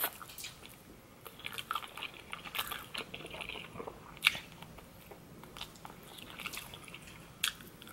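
A person chewing and biting food close to the microphone: irregular soft, wet mouth clicks and smacks, with a few sharper clicks about four seconds in and near the end.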